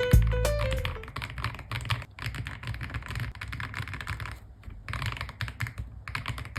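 Fast typing on a mechanical keyboard with Dune Fox linear switches: a dense, irregular run of keystrokes, with a brief pause about four and a half seconds in. A short music phrase fades out in the first moment.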